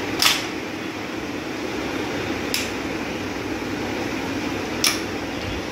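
SDB Xena break-barrel air rifle being cocked by hand: three sharp clicks about two seconds apart as the barrel is broken open, cocked and closed, over a steady background hum.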